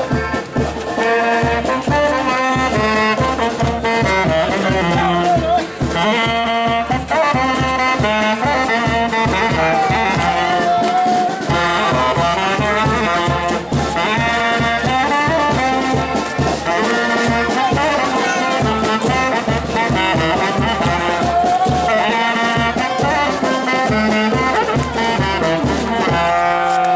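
Brass band playing a dance tune: a horn melody over a steady bass drum beat.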